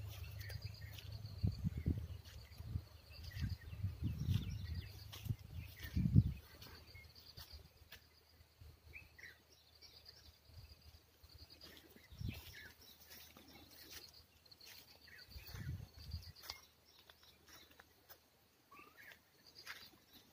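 Outdoor farm ambience: a few birds chirping faintly over a high, pulsing buzz, with low rumbling knocks on the phone's microphone, heaviest in the first few seconds and loudest about six seconds in.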